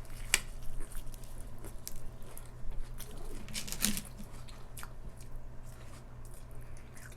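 Close-miked biting and chewing of crunchy food, with sharp crunches just after the start and a louder cluster about four seconds in.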